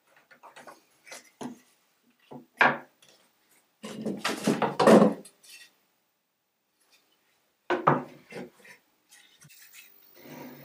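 Wooden frame strips being handled on a plywood workbench: sharp knocks as pieces are picked up and set down, and scraping and rubbing as they slide. The loudest is a scrape of about a second, about four seconds in.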